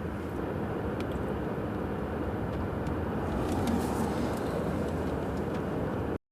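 Steady low rushing background noise with a few faint ticks, cutting off abruptly into silence near the end.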